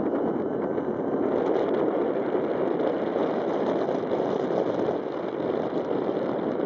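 Steady distant drone of a large RC model plane's DLE 111 twin-cylinder two-stroke petrol engine in flight, mixed with wind buffeting the microphone.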